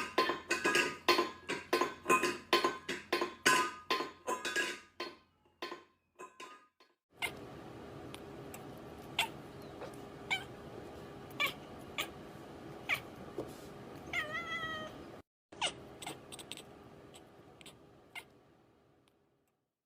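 A domestic cat meowing once, a short call that bends in pitch, over a faint background. Earlier, a fast run of loud, sharp clicks or taps, several a second, makes the loudest part of the sound.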